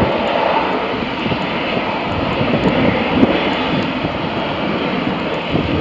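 Jet airliner engines heard across the airfield: a steady, even rushing noise.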